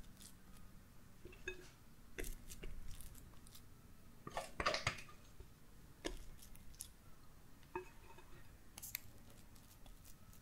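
Spatula scooping thick cream-cheese whipped cream and dropping dollops of it onto a sponge cake sheet: several short, scattered clicks and taps, the loudest a cluster about four and a half seconds in.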